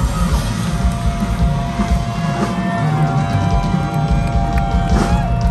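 Live rock band playing loudly over an outdoor PA, with one note held for about two seconds near the end that bends down as it stops.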